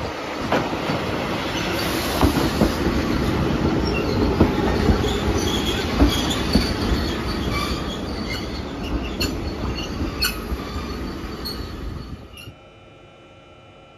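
A 1958-built two-car electric multiple unit running past close by, with rumbling wheels, clicks over rail joints and squeals from the wheels. The train sound cuts off abruptly about twelve seconds in, leaving a faint steady hum.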